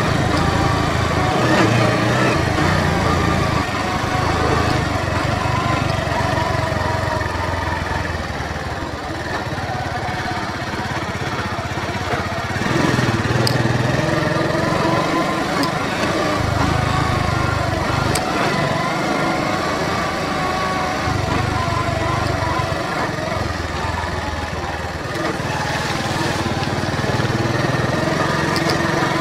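Bajaj Boxer 100 cc motorcycle's single-cylinder engine running while riding, its pitch rising and falling with the throttle. A few faint ticks come through partway in.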